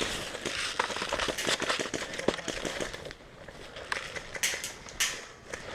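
Sporadic sharp pops and crackles of airsoft guns firing, dense and irregular for about three seconds, then a few louder single shots near the end.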